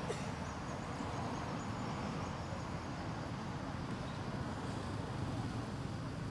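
Steady low background rumble. A faint thin high whine sounds during the first few seconds.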